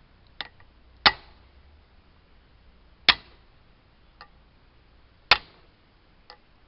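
Hammer striking a socket set on the valve spring retainers of an AMC 232 six-cylinder head: three sharp metal-on-metal blows about two seconds apart, each with a lighter click before it. The blows are to knock the stuck valve keepers loose.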